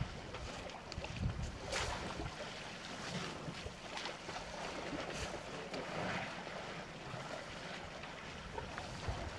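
Wind rushing over the microphone, with rustling and a few faint clicks.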